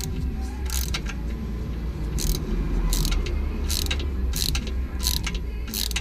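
Ratchet wrench clicking in short bursts, one back-swing about every 0.7 s, as bolts are turned out of the transmission pan.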